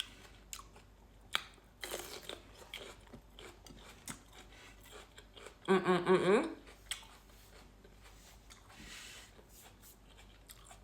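Close-up chewing and biting of crunchy fried food, with a scatter of crisp crunches and mouth clicks. A short hummed vocal sound comes about six seconds in.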